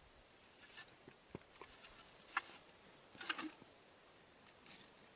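Faint handling noise from an ice angler jigging a small winter rod over an ice hole: scattered soft clicks and light crackly rustles, with two slightly louder crackles about two and a half and three and a half seconds in.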